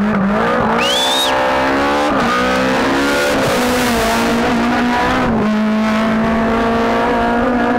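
BMW E30 rally car at high revs passing close by at racing speed, its engine note holding steady after a brief dip about two seconds in. A short tyre squeal comes about a second in.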